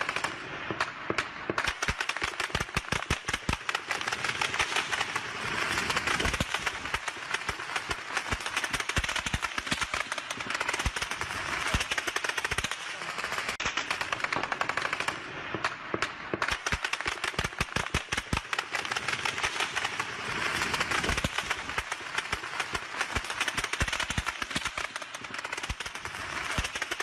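Heavy, near-continuous automatic gunfire: dense bursts of many shots a second, firing without let-up apart from a few very brief lulls.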